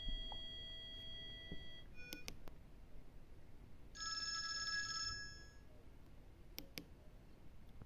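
Electronic ringtones and alert tones from a fake Nokia C1-01 phone. A held synthesized note ends a melody, a couple of short beeps and clicks follow, then a warbling ring-like trill lasts about a second. Two sharp clicks come near the end.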